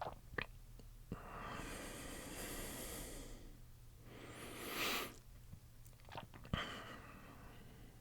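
A man breathing close to the microphone: a long slow breath, then a louder one swelling about five seconds in, with a few soft mouth clicks between them.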